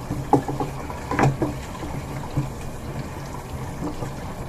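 Kitchen tap running as hands wash under the stream, with a few short knocks and clinks in the first second and a half.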